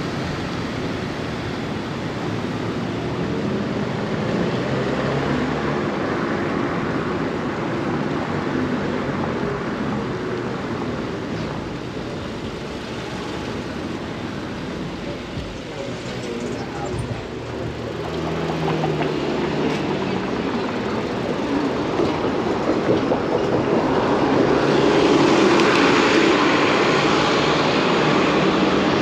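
City street traffic heard from a moving bicycle: a steady rush of road and vehicle noise, growing louder from about three-quarters of the way through as traffic passes close by.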